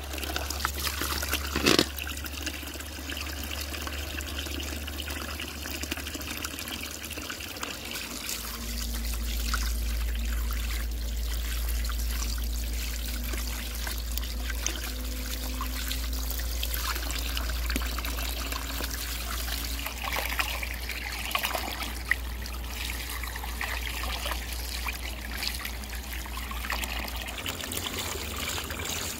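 A stream of water pouring into a plastic basin of small fish and splashing as hands rub and rinse them, with water spilling over the basin's rim. A steady low hum runs underneath, and there is one sharp knock about two seconds in.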